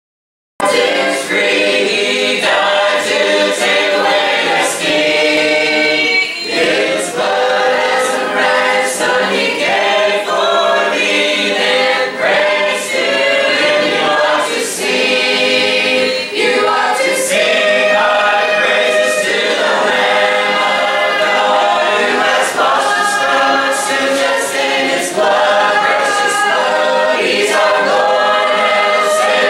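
A church congregation of men and women singing a hymn together a cappella, unaccompanied by any instrument.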